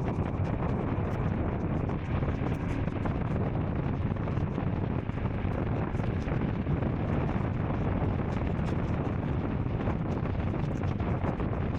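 Royal Enfield single-cylinder motorcycle engine running steadily while riding, with wind buffeting the microphone.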